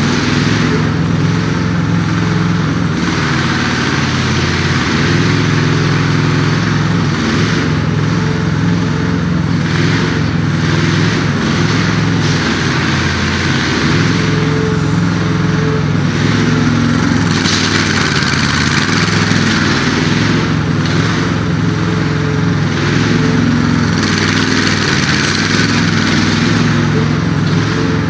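Engine of an 800 kg mini excavator running steadily, its note shifting slightly in pitch, with a hiss that swells and fades every few seconds.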